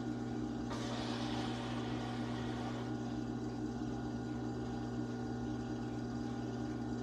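Electric pottery wheel motor humming steadily as the wheel head spins. From about one second in to about three seconds there is a soft rubbing hiss of wet hands shaping the clay pot on the wheel.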